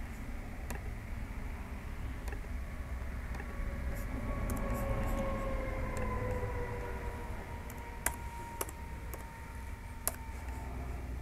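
Scattered clicks of a computer mouse and keyboard over a steady low room hum, with a few sharper clicks near the end.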